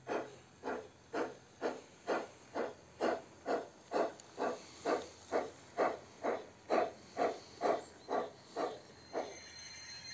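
ESU LokSound 5 XL sound decoder in an LGB G 3/4 model steam locomotive playing a steady steam chuff, about two beats a second, in time with the running model. The chuffs stop about nine seconds in, leaving a faint hiss.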